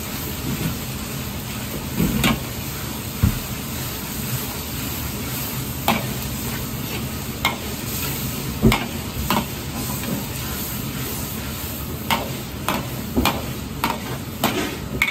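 A metal wok ladle stirring and scraping a minced-pork sauce around a wok, with a steady sizzle over a low rumble. The ladle clinks on the wok irregularly, several times in quick succession near the end.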